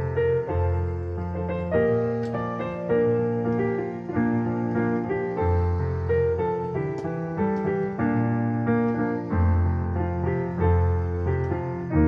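Digital piano played with both hands: a slow worship-song melody in chords over held bass notes.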